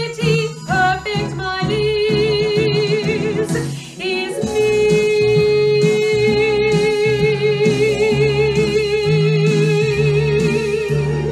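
A lyric coloratura soprano sings over an instrumental accompaniment. After a few quick notes she holds a note for a second or so, then from about four seconds in sustains one long note with wide vibrato until near the end.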